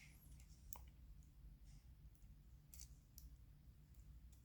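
Near silence with a faint steady hum and a few faint, sharp clicks of a plastic toolless RJ45 connector and cable wires being handled.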